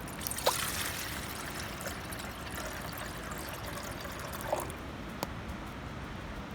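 Steady trickling of water, with a few sharp clicks and brief knocks scattered through it.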